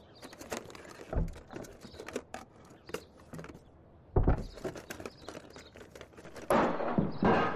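Small clicks and rustling with a couple of soft thumps. About six and a half seconds in comes a loud crash as overfilled plastic shopping bags burst: groceries hit the floor and glass jars and bottles smash.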